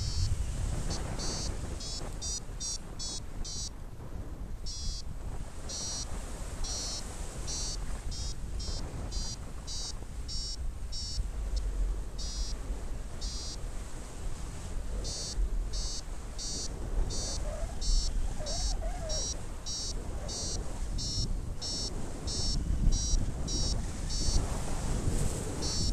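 Paragliding variometer beeping in quick runs of short high beeps, several a second, with brief pauses between runs: the climb tone that signals the glider is rising in lift. Wind rushes on the microphone underneath.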